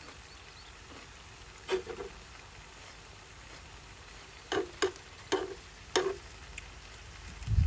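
Eating sounds: a handful of short, crisp clicks and crunches spaced over several seconds, with a low rumble of wind on the microphone near the end.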